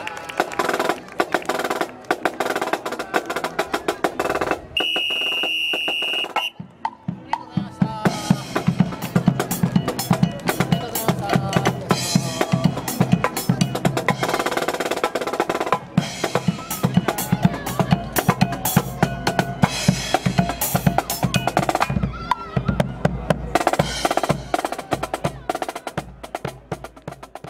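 Marching brass band playing, led by snare and bass drums beating a steady drum cadence. About five seconds in, a single steady high tone lasting about a second and a half cuts across the drums.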